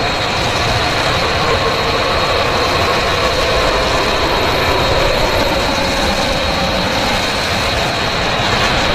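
Mechagodzilla film sound effect: a steady, jet-engine-like mechanical roar with several held tones running through it.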